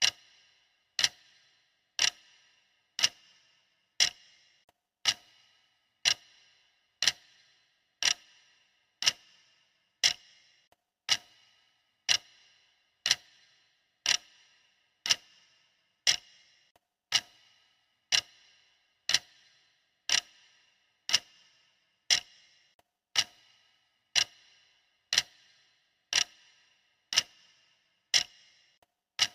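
Stopwatch ticking sound effect: one sharp, clock-like tick every second, steady and even.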